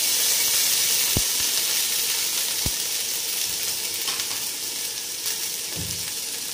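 Chopped onion sizzling in hot sunflower oil in a steel pot, with a steady hiss that slowly fades as the onion starts to fry.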